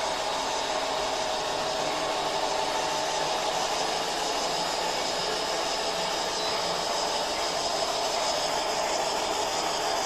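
Gauge 1 model train running along its track, a steady whirring noise with a faint hum.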